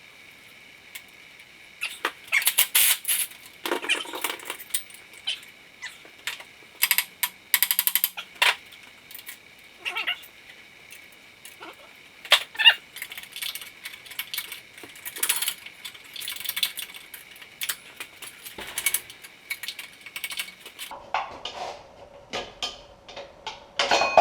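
Hand tools working a two-jaw puller: bursts of ratchet clicking and metal-on-metal squeaking come in groups with short pauses between them, as the puller screw is wound in to draw a part off the engine.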